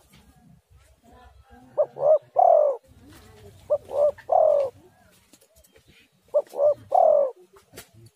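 Spotted dove cooing: three phrases about two and a half seconds apart, each two short coos and then a longer coo that falls in pitch.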